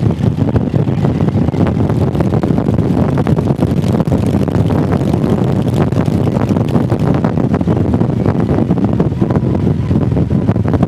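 Motorcycle under way at a steady pace, its engine running low beneath loud wind buffeting on the microphone.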